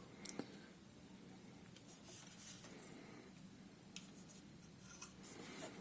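Faint handling noise from a plastic hair dryer being turned over in the hands: a few light clicks and rustles over a low steady room hum.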